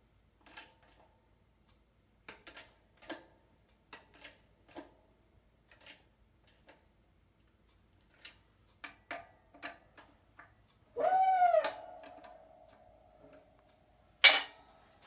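Universal joint being pressed into a driveshaft yoke on a hand-pumped hydraulic shop press: scattered light metal clicks, a short squeal about eleven seconds in that leaves a ringing tone, and one sharp metal clank near the end.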